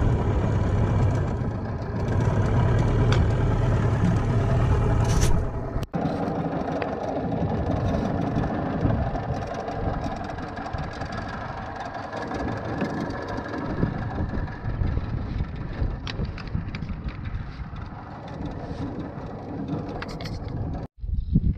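Small boat's outboard motor running steadily at low speed while the boat moves along. The sound breaks off for an instant about six seconds in and again just before the end.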